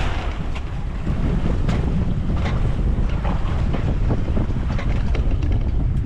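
Wind buffeting the microphone over water rushing and slapping against a small boat's hull in open-ocean chop, with a few short sharp splashes or knocks scattered through.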